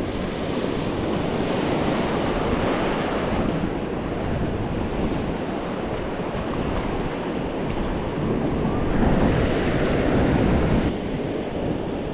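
Ocean surf breaking and washing in, with wind buffeting the microphone. A louder surge of water about nine seconds in drops away suddenly about two seconds later.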